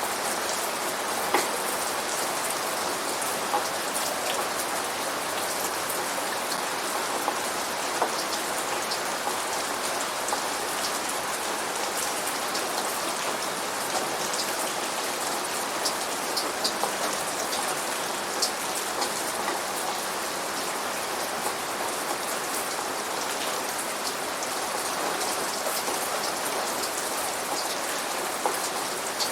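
Steady rain falling, an even hiss with many individual drops pattering and dripping on a surface close by. No thunder in this stretch.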